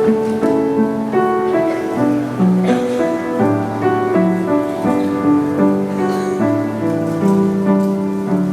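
Slow instrumental music of held chords, the notes changing every half second to a second, with no singing.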